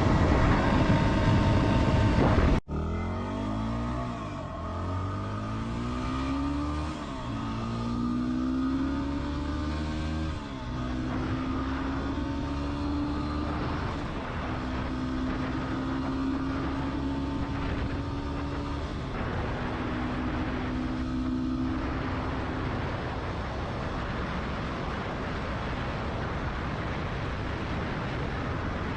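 2016 Yamaha WR250R's single-cylinder engine pulling up through the gears, its pitch climbing and dropping back three times with the shifts, then holding nearly steady at cruising speed over a constant rush of noise. A louder stretch of riding cuts off suddenly about two and a half seconds in.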